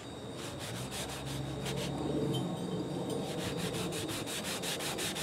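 Hand-sanding a steel tractor shaft to smooth filler on a chewed-up, cosmetic spot: a scratchy rubbing in quick back-and-forth strokes that come faster in the last couple of seconds, then stop.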